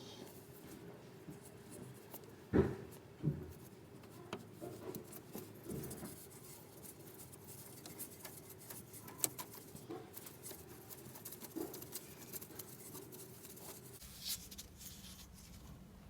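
Faint scattered clicks and taps of hand work on the gear-change cable's ball-and-socket end, with two louder knocks about two and a half and three seconds in, over a faint steady hum that stops near the end.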